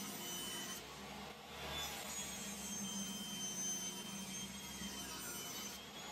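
Table saw running steadily while plywood strips are ripped through the blade.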